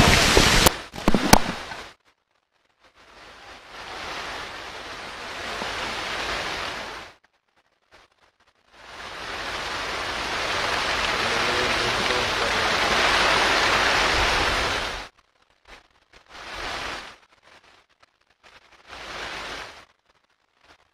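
Steady hiss of rain. It comes in stretches of a few seconds: once for about four seconds, then for about six seconds, then two short patches near the end, each cutting off abruptly into silence.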